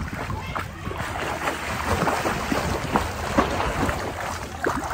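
Water splashing and sloshing close by as a swimmer strokes and kicks at the surface, an uneven run of many small splashes.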